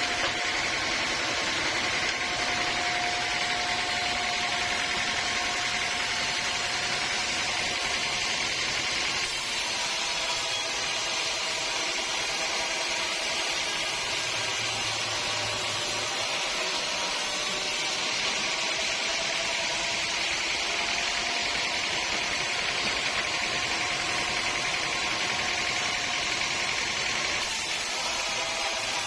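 Sawmill machinery running steadily: a constant mechanical noise with a faint whine through it.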